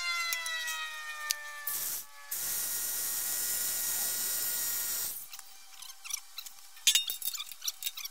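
Cordless drill motor whining down near the start, then running steadily for about three seconds. Near the end, a few sharp metal clanks as the steel pieces are handled.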